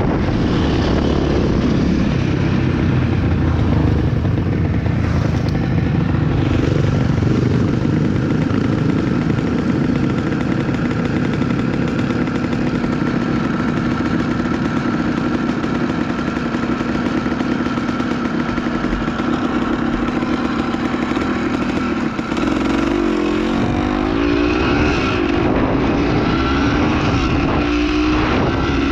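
Off-road dirt bike engine running steadily under way. Near the end its pitch wavers up and down with changes of throttle.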